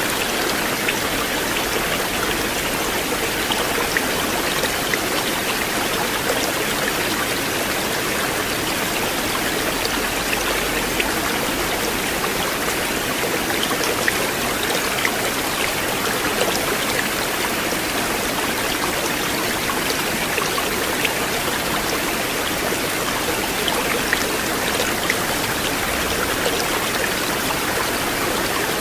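River water flowing steadily, with many small drips and splashes scattered through it.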